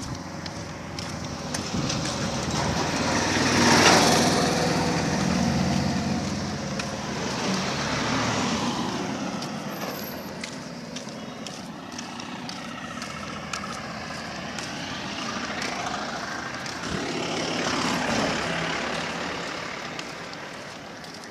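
Motor vehicle noise, an engine rumble that swells and fades several times as vehicles pass. It is loudest about four seconds in.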